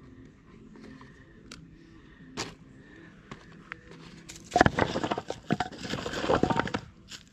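Campfire being lit in a steel fire ring: a few faint clicks, then a loud crackling, rustling rush for about two and a half seconds as the crumpled paper kindling under the split logs catches.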